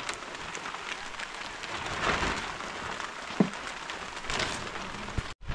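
Steady rain falling, with one sharp knock about three and a half seconds in. The sound cuts out for an instant near the end.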